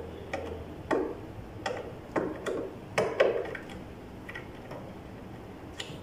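Hand tool clicking and tapping on the metal terminals of a front-load washing machine's heating element: about ten short, sharp clicks at uneven intervals, some with a brief metallic ring.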